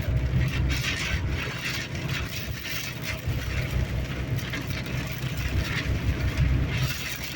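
Car cabin noise while driving in high wind: a low, uneven road and engine rumble with the hiss of wind and rain against the car.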